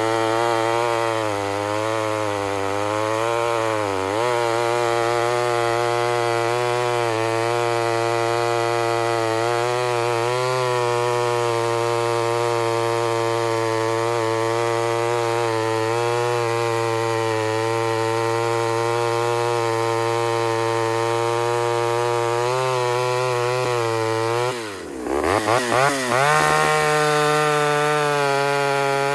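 Ported Homelite Super XL Auto two-stroke chainsaw running at full throttle, its pitch sagging a little now and then as it works through wood. About 25 seconds in the revs drop sharply and it is blipped a few times, then it runs on steady at a higher pitch.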